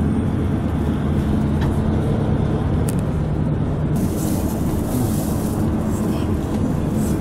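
Tour coach driving on a city road: a steady engine hum and road rumble heard from inside the cabin, with a brief hiss about four seconds in.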